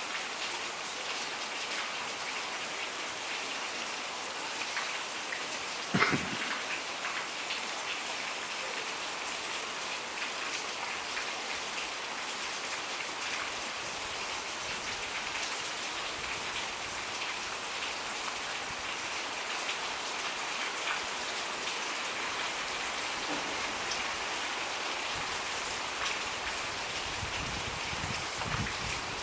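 Steady rain falling, an even hiss of drops. About six seconds in there is a single sharp knock.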